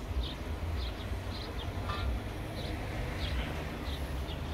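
A small bird chirping repeatedly, short high chirps about twice a second, over a steady low rumble.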